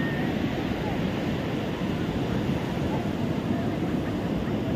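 Steady rush of sea surf breaking on a beach, with faint voices of people in the distance.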